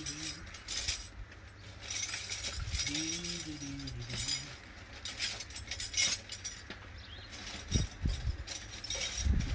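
Light metallic clinks and scrapes of hand tools working deep in an engine bay, irregular and unrhythmic, with a brief wordless vocal sound about three seconds in and two dull knocks near the end.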